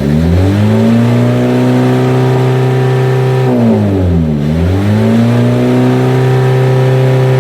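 Mitsubishi L300 engine revved and held at high revs, let back briefly about four seconds in, then revved up and held again. This is the kind of free revving used to check the exhaust for smoke.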